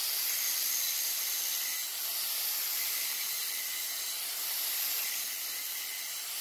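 Hand-held angle grinder's abrasive disc grinding down the hardened steel end of a hydraulic top link: a steady high hiss of metal being ground away.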